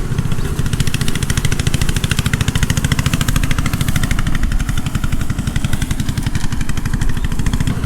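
Small engine running steadily with a fast, even chug.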